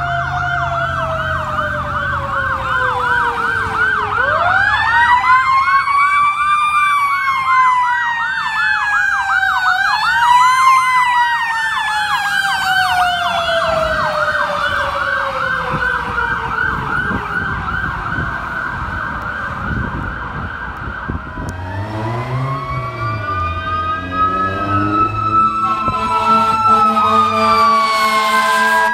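Fire trucks responding with sirens: an electronic siren on a fast yelp while a mechanical siren winds up and coasts slowly down, twice. From about 22 s in, a mechanical siren winds up again under steady horn blasts near the end.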